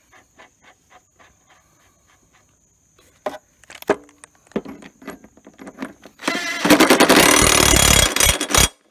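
Impact wrench hammering a mower blade nut tight onto its spindle in a burst of rapid strokes lasting about two and a half seconds near the end, after a few light metal clinks as the nut is fitted by hand.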